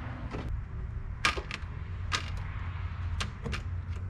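Scattered sharp clicks and small knocks, about seven of them, as wire leads with clips are handled and clipped onto a car battery's terminals, over a steady low hum.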